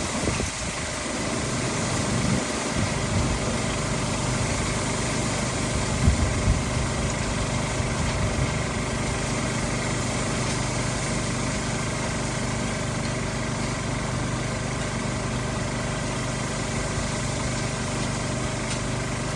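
Portable generator running steadily at an even hum, with a few low bumps near the start and about six seconds in.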